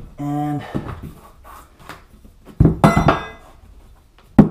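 A metal hand tool clatters against the plywood and cork with a brief metallic ring about two and a half seconds in, then a single sharp hammer blow lands on a cork tile near the end.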